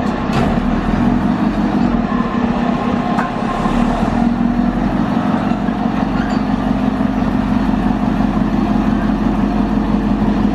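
Small four-wheeled diesel shunting locomotive's engine running steadily with a deep hum. The low end grows a little heavier about four seconds in, and there are a few light clicks.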